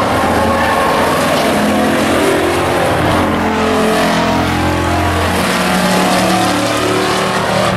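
Several stock pickup race trucks running hard on the track, their engine notes overlapping and rising and falling in pitch as they accelerate and pass.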